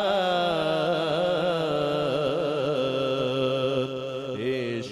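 A man singing devotional verse into a microphone, drawing out one long ornamented note with a wavering vibrato that slowly sinks in pitch, over a steady low drone.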